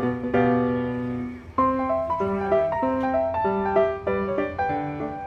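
Piano music: a held chord, then a lively melody of single notes from about a second and a half in.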